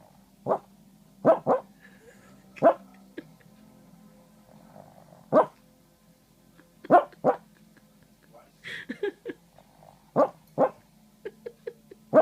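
Small dog barking in its sleep: short single barks and pairs of barks, with a run of quicker, smaller ones near the end.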